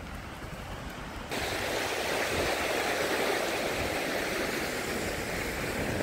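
Sea surf washing onto a sandy beach, a steady rushing hiss that jumps louder about a second in.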